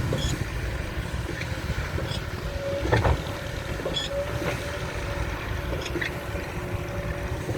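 Diesel engine of a SANY SY200C excavator running under work, a steady low rumble with a steady whine coming in about two and a half seconds in. A single sharp knock sounds about three seconds in.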